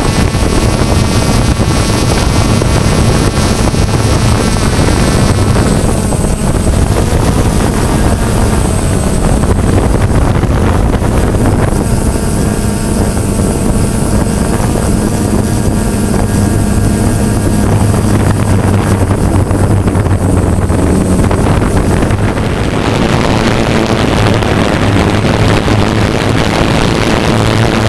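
DJI Phantom quadcopter's motors and propellers whirring steadily as it hovers and flies, with a whine of several tones that shifts in pitch as it manoeuvres, and wind noise on the microphone.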